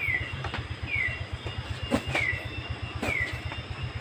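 An animal's short call, sliding down in pitch, repeated about once a second, over a steady low rumble, with a few light knocks.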